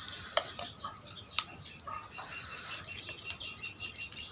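A few sharp clinks of utensils against the noodle bowl while eating, with a bird chirping over and over in the background.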